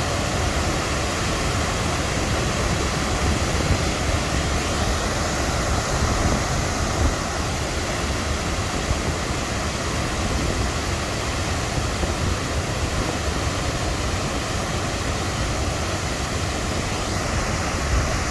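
Steady rush of a waterfall: water pouring and splashing in an even, unbroken roar with a deep rumble underneath.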